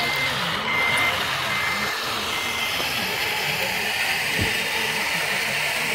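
Reversing beeper of a radio-controlled model vehicle's sound module: a high single-pitched beep repeating about once a second, stopping about two and a half seconds in, over a steady hiss.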